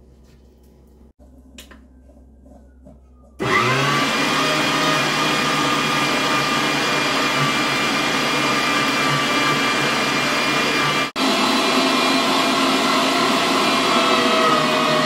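Electric kitchen appliance motor, a blender or food-processor type, switched on about three and a half seconds in and running steadily at full speed with a high whir. It drops out for an instant about two-thirds through.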